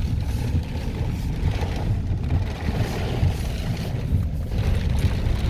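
Low, gusting rumble of derecho-force wind buffeting a moving truck and the microphone, mixed with the truck's road noise.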